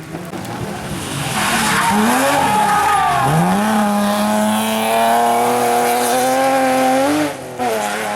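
Rally car engine revving hard under acceleration. The pitch climbs, dips briefly about three seconds in, then climbs again and holds high and steady for several seconds before falling away near the end.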